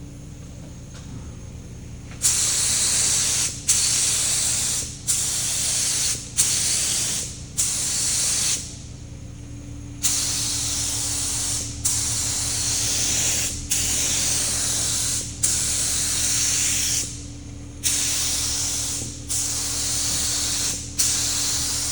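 Air-powered paint spray gun spraying in a series of about a dozen short hissing bursts, each a second or two long, with brief gaps as the trigger is released between passes; the bursts start about two seconds in and pause for over a second near the middle. A steady low hum runs underneath.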